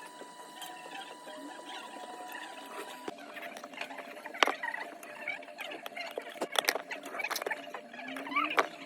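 Small clicks, taps and scratching of hand tools and fingers working on an iPhone 12 Pro Max's body during a back-glass repair, denser and louder from about three seconds in. A steady electronic whine runs underneath at first and cuts off about three seconds in.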